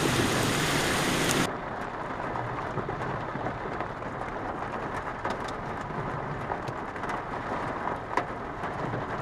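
Heavy rain. About a second and a half in, a loud, dense hiss cuts off abruptly and gives way to a quieter patter of individual drops striking a surface.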